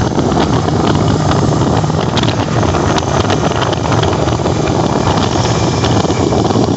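Honda ATV engine running steadily under way, with wind noise on the microphone.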